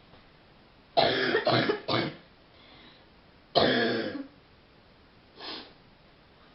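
A woman coughing deep, chesty coughs: a quick run of three about a second in, a single longer cough near the middle, then a fainter short one near the end.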